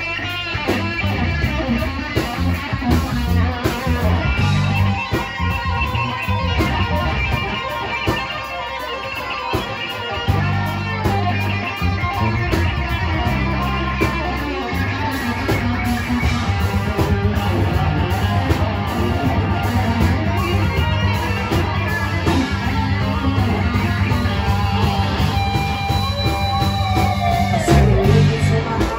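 Live rock band playing: electric guitars over bass guitar and drums, a dense steady groove.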